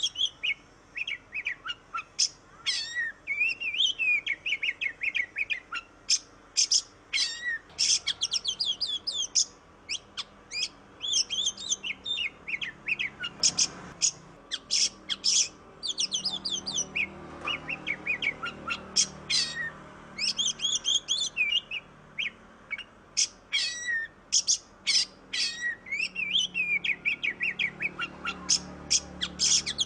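Oriental magpie-robin (kacer) singing continuously: rapid runs of sharp, high notes and quick falling whistles, in phrases separated by short pauses.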